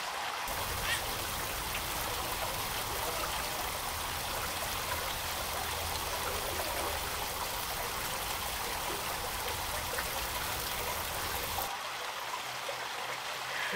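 Garden fountain water bubbling up from a small spout and trickling steadily into its stone basin, with a low rumble under it that drops out near the end.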